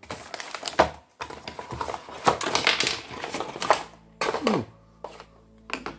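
Cardboard packaging being handled by hand: a quick run of rustles, knocks and scrapes as items are lifted out of the inner tray, with a short falling scrape a little after four seconds, then quieter.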